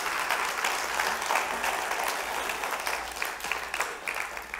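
Congregation applauding, the clapping dying down near the end.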